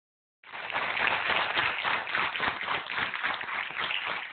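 Studio audience applauding, starting about half a second in and going on steadily.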